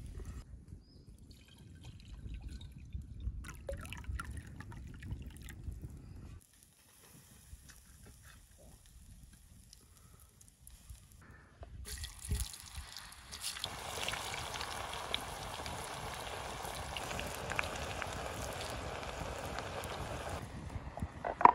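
Hot oil sizzling and bubbling steadily in a cast-iron pan over a wood fire, with potato sticks deep-frying in it, starting a little past halfway. Before that, quieter clinks and trickling liquid; a sharp clink at the very end.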